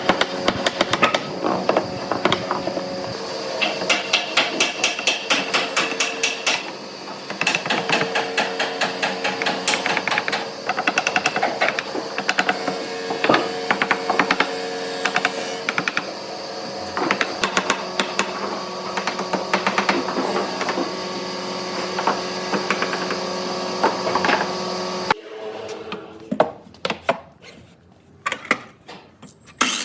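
Workshop tool noise: rapid mechanical clicking and tapping over a steady machine hum. It cuts off abruptly about 25 seconds in, leaving a few scattered clicks.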